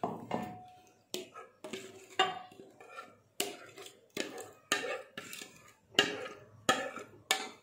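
A spoon knocking and scraping against the side of a bowl while a thick yogurt marinade is stirred and scraped out, in short irregular strokes about two a second.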